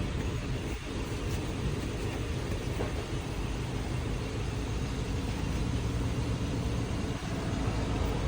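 A car in motion: a steady, even low rumble of road and tyre noise, the drone listened for when checking for a bad wheel bearing.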